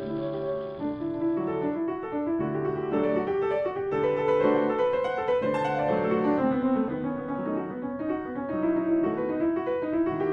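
Classical piano music: a run of piano notes and chords.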